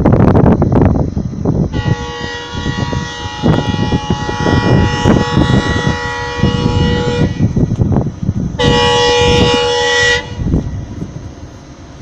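Multi-tone horn of an approaching WDP-4D diesel locomotive: one long blast of about five seconds, then a shorter blast of about a second and a half. A loud low rumble comes before the first blast.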